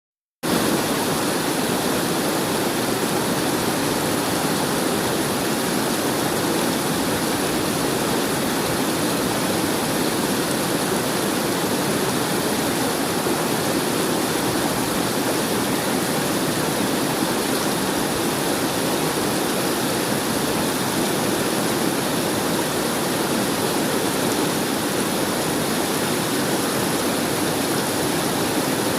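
River water flowing in a steady, unbroken rush that starts abruptly about half a second in.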